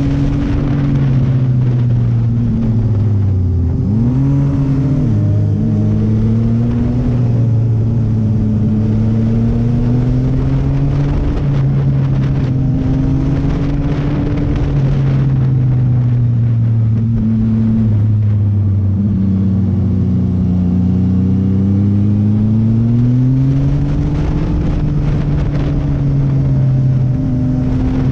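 Sport motorcycle engine running under way, heard from on the bike itself, its pitch rising and falling as the throttle is rolled on and off through the curves, with a quick rev up and back down about four seconds in.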